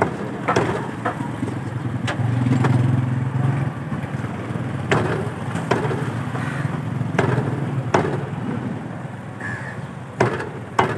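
Meat cleaver chopping rabbit pieces on a wooden stump chopping block: sharp, separate chops about once a second or so, roughly nine in all. Under them runs the low, steady hum of a motor vehicle engine, louder around two to three seconds in.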